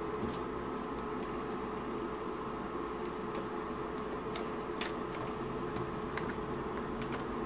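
Faint scattered plastic clicks and taps from a VW Fox instrument cluster's LCD surround being worked loose by hand, over a steady background hum.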